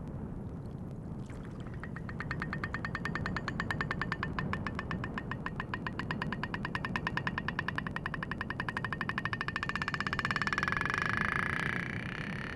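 Humpback whale clicking, recorded underwater: a long train of sharp clicks starting after about a second and a half, speeding up into a rapid buzz near the end, over steady low water noise.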